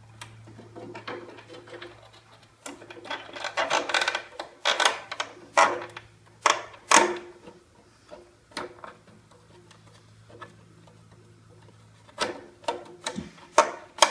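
Clicks, knocks and scraping of a circuit board being fitted back into a Fronius inverter's housing, in an irregular run that thickens a few seconds in and comes again near the end.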